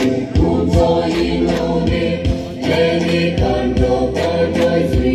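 Traditional group singing, a chorus of voices chanting together over a steady percussive beat of about two strikes a second.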